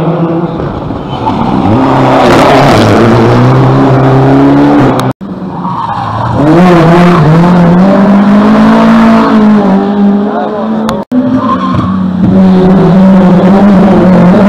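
Rally car engines revving hard, the pitch climbing and falling back with gear changes and lifts for the corner. The sound breaks off abruptly twice, about five and eleven seconds in.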